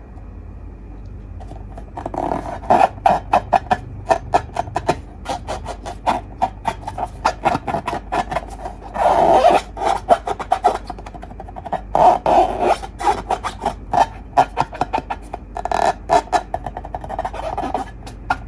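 Slime being squished and worked by hand, giving rapid sticky clicks and pops in irregular runs, with a few denser bursts of crackling.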